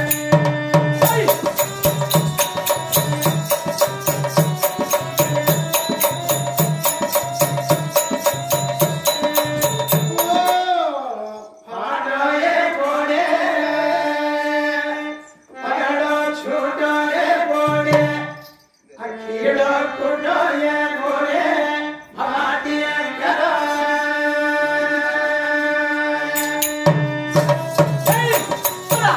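Live folk-theatre music: a hand drum plays a steady beat under a held melodic drone, with small cymbals keeping time. From about eleven seconds in, men's voices sing in phrases with short breaks, and the drum beat comes back near the end.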